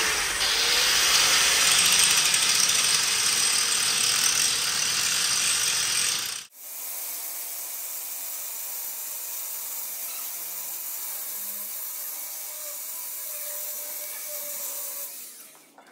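Angle grinder grinding on the steel of a tractor's front axle, a steady, loud abrasive noise. About six seconds in it cuts off abruptly and resumes quieter, still grinding, then tails away near the end.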